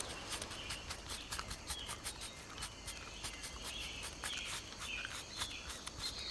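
Quick, irregular crisp clicks, several a second, of a caterpillar chewing the edge of a leaf, with short high bird chirps behind.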